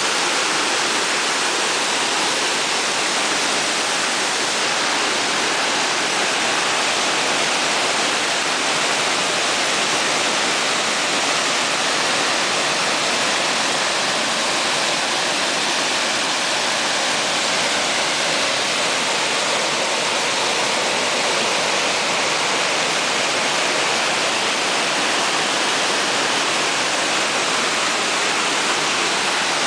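Muddy floodwater of a river swollen by a flood, pouring over a low concrete weir and rushing through the rapids below: a loud, steady rush of water with no breaks.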